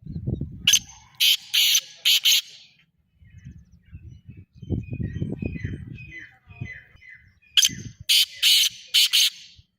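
Black francolin calling twice: two bursts of about five harsh, grating notes each, the first just after the start and the second about eight seconds in. A series of faint, short, falling chirps from a smaller bird comes in between.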